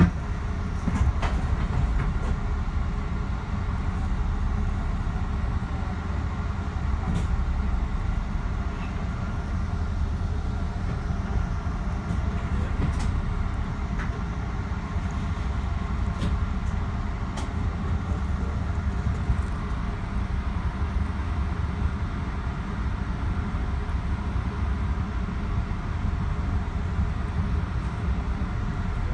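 Metro-North commuter train running along the track, heard from inside the front car: a steady low rumble with occasional sharp clicks.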